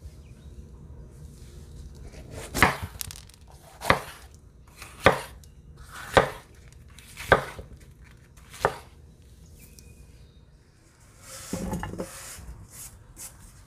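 Kitchen knife chopping a red bell pepper on a wooden cutting board: six sharp knocks of the blade on the board, about one a second. Near the end, the cut pepper strips are tipped off the board and patter into a ceramic baking dish.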